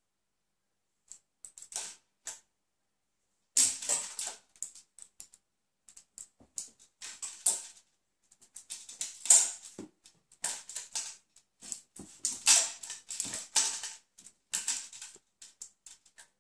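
Kitten playing with a small plastic toy hanging on a string over a tile floor: irregular quick clicks and clatters in bunches, sparse at first and busier from about three and a half seconds in.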